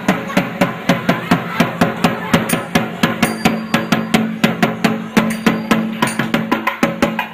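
Thavil, the South Indian double-headed barrel drum, played in a fast continuous run of sharp, cracking strokes, several a second. A steady low tone sounds under the strokes from about three seconds in to near the end.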